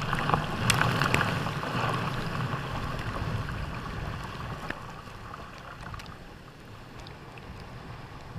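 Jet ski running through rough, choppy water: a rushing wash of spray and churned water over the low hum of the engine, with scattered sharp ticks of droplets hitting the mounted camera. The spray noise gradually dies down.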